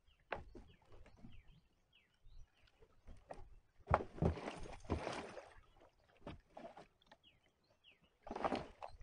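Footsteps crunching through dry brush and twigs, loudest in a scuffling burst about four seconds in as a person steps over a plastic kayak at the water's edge, then more scraping and knocking near the end as he climbs into it. A bird chirps briefly several times in the background.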